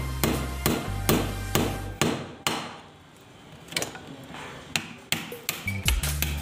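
Hammer striking a chisel to chip concrete away from around a plastic water pipe: a run of sharp metallic strikes, a pause of about a second past the middle, then quicker strikes near the end.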